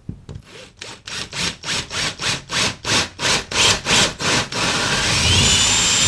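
Cordless drill with a carbide bit boring into a plaster wall, pulsing about four times a second at first, then running steadily with a high whine for the last second and a half.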